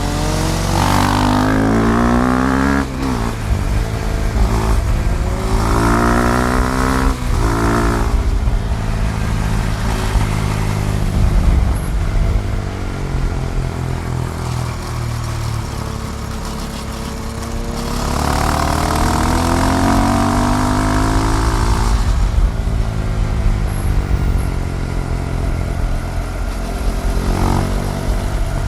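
KTM Duke 390's single-cylinder engine under way, revving up through the gears with short breaks at each shift during the first eight seconds. It eases off, then pulls hard again from about eighteen to twenty-two seconds.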